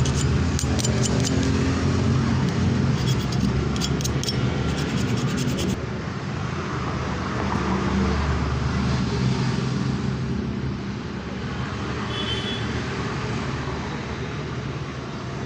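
Steady low rumble of road traffic. For about the first six seconds, rapid scratchy scrubbing of brake caliper parts being cleaned sounds over it, then stops.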